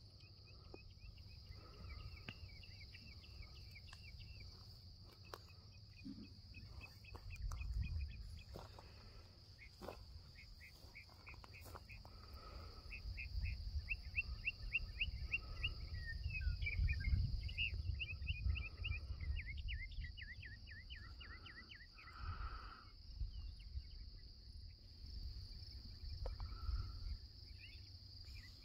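Insect chorus: a steady high buzz with trains of rapid chirps, over a low rumble that swells for several seconds in the middle.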